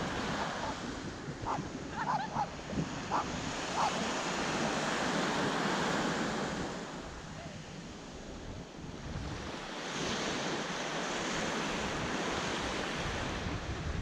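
Small sea waves breaking and washing up a sandy shore, with wind buffeting the microphone. The wash swells and eases, quieter around the middle and building again about two-thirds of the way through.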